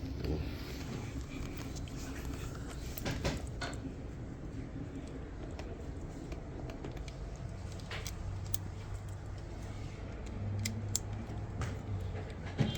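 Scattered clicks and light knocks of parts being handled during a washing machine drain pump installation, over a steady low hum.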